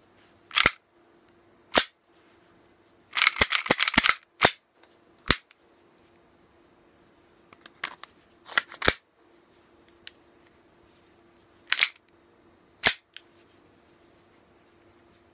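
Tokyo Marui G18C gas blowback airsoft pistol with an aftermarket metal slide (PGC/PROWIN), dry-fired: the slide cycles with sharp metallic clacks. It fires single shots and a few quick pairs, plus one short rapid full-auto burst about three seconds in.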